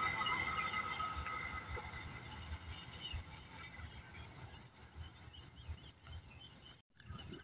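An insect chirping in a fast, even rhythm, about six or seven chirps a second, over the faint low rumble of a passenger train moving away.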